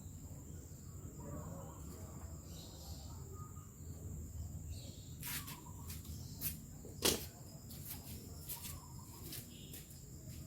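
A scattering of faint clicks and knocks over a low steady hum, with one sharp knock about seven seconds in, the loudest sound.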